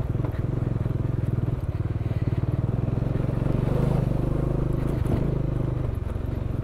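Motorcycle engine running with a steady pulsing exhaust note as the bike is ridden slowly in a low gear over rough gravel, growing a little louder about halfway through and easing off near the end.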